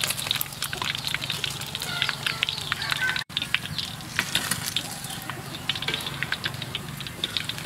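Battered frog pieces deep-frying in hot oil, a steady sizzle with many sharp crackling pops.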